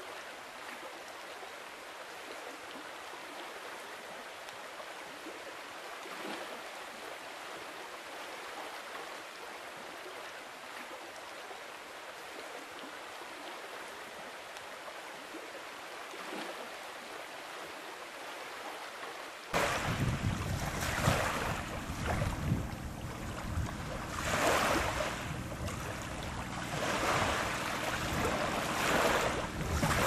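Steady hiss of wind and water. About two-thirds of the way in it changes abruptly to louder, gusting wind buffeting the microphone, with surges that rise and fall.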